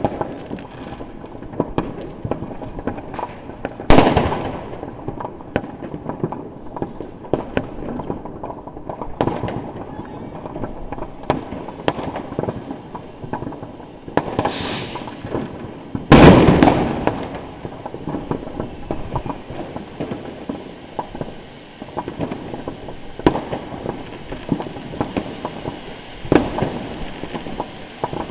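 Fireworks: ground fountains and a spinning sun firing, a steady noisy hiss with many small pops. Two loud bangs come about 4 and 16 seconds in, and three short falling whistles near the end.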